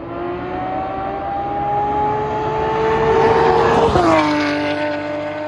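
Porsche 992 GT3's 4.0-litre flat-six, fitted with prototype street headers and a loud muffler, accelerating hard with its note rising steadily and growing louder. About four seconds in it passes close by, and the pitch drops sharply to a steady lower note.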